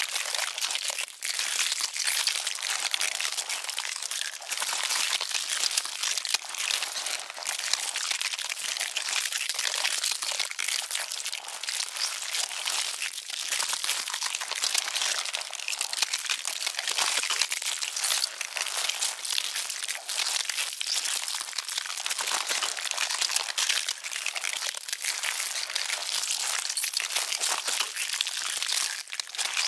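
Ant swarm heard close up and amplified: a dense, continuous crackling made of many tiny clicks, as of a colony chewing.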